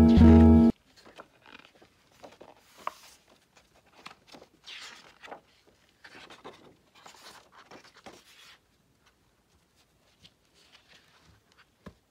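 Acoustic guitar music cuts off just under a second in. Then the pages of a large-format magazine are turned by gloved hands: a run of soft paper rustles and swishes, with a few fainter handling ticks near the end.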